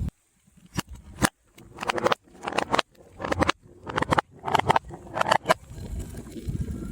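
Brittle things being crushed: a quick run of crunches and cracks, a cluster roughly every half second, with a low rumble under the last second.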